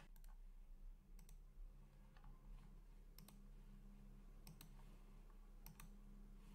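Near silence with about seven faint, sparse clicks from a computer being worked, two of them in quick pairs, over a low steady hum.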